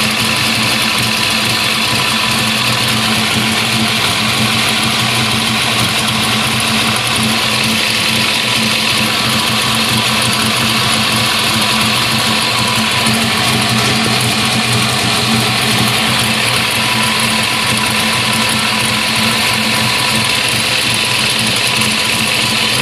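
Engine idling steadily while its ignition timing is being set with a timing light; the timing is still not right at this setting, which the owner thinks was better at the previous one.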